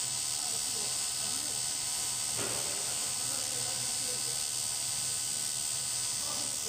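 Two TIG welding arcs burning at once on an aluminium tank seam, giving a steady electric buzz with a hiss over it, and a brief clatter about two and a half seconds in.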